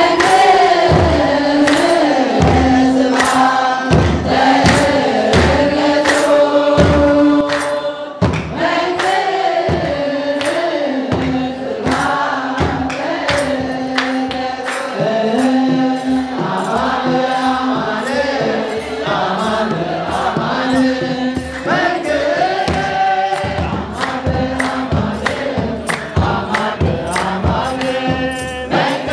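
An Orthodox Tewahedo church choir singing a hymn in unison, with kebero drums beaten in a steady rhythm of about two strokes a second.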